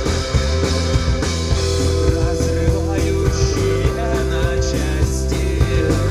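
Rock band playing live: a steady drum beat under long held notes.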